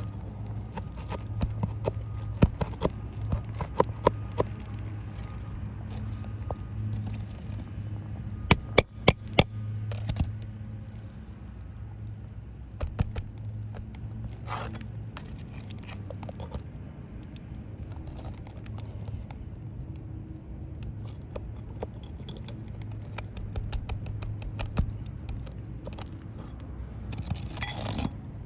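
Flat pry bar scraping and clicking under three-tab asphalt shingles as the tabs are pried loose, with a quick run of sharp clicks about nine seconds in. A steady low hum runs underneath.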